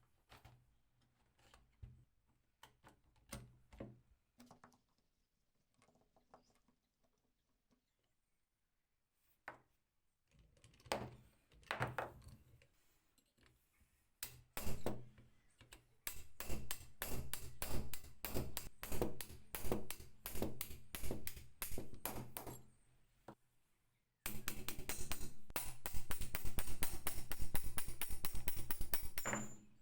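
Metal clicks and knocks from working on an old two-speed hand drill, sparse at first. Later come long runs of fast, even clicking and rattling.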